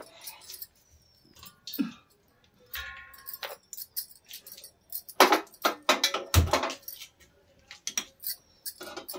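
Bangles jangling and kitchen things clinking and knocking as an arm moves about the stove, with a heavier knock a little past six seconds in.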